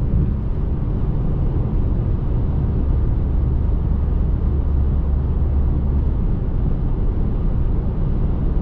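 Cabin noise of a 2021 Audi Q3 with a 2.0-litre four-cylinder engine cruising on the highway: a steady low road and engine rumble heard from inside the car, which eases a little about six and a half seconds in.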